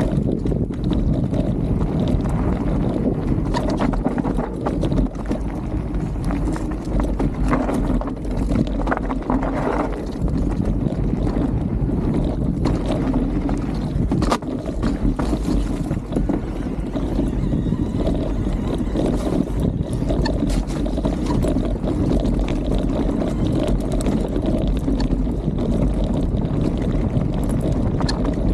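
Mountain bike descending a rocky dirt singletrack, heard from a camera on the bike: a steady rumble of knobby tyres over dirt and stones, with frequent rattles and knocks from the bike, and wind buffeting the microphone.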